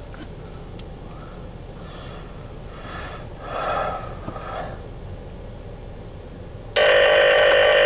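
Low background hum with faint distant voices, then near the end a loud, steady electronic calling tone from a scanner radio starts abruptly and holds.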